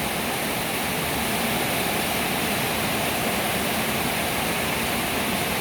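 Rain falling steadily, an even rushing noise with no let-up.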